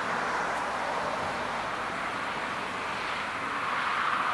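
Boeing 737-800's CFM56-7B jet engines running at taxi power as the airliner taxis: a steady jet noise that grows a little louder near the end.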